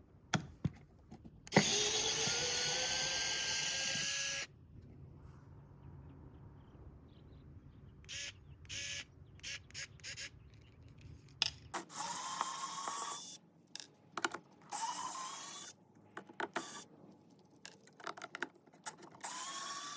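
Small battery-powered electric screwdriver motor running in bursts, a high whine rising in pitch as it spins up. The first run is the longest, about three seconds, and shorter runs follow later. Clicks and handling knocks come between the runs.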